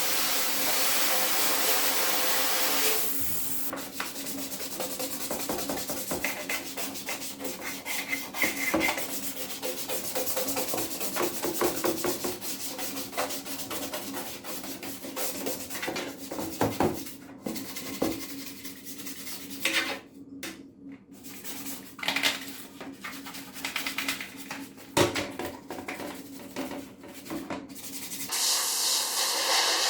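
Parts of a vintage mechanical keyboard being scrubbed and rubbed while it is cleaned, an irregular scraping with many small clicks. A steady hiss runs for the first three seconds and starts again in the last second or two.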